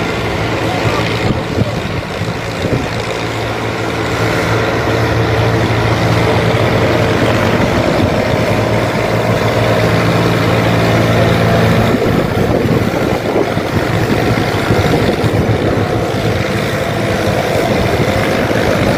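Vintage Massey Ferguson tractor engine running hard under load, pulling a weight-transfer sled. The engine note holds steady for most of the pull and turns rougher and less even in the second half.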